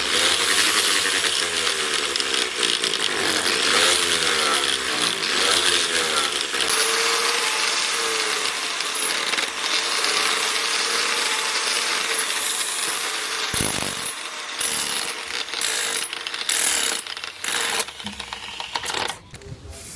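A power tool running with a hissing grind, its pitch dipping and rising every second or two as it is pressed into the work. In the last few seconds it gives way to scattered clicks and knocks.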